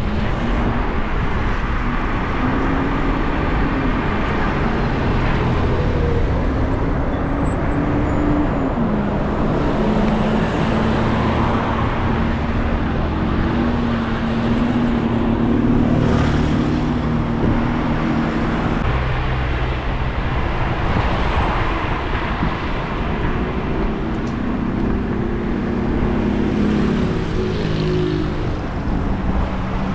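Steady road traffic: car engines humming over continuous noise from the roadway.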